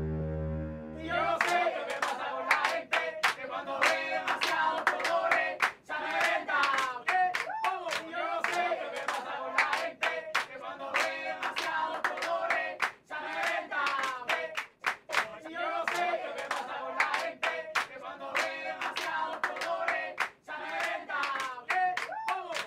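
A group of young voices singing together to fast hand clapping, which starts about a second in as a low held music tone cuts off.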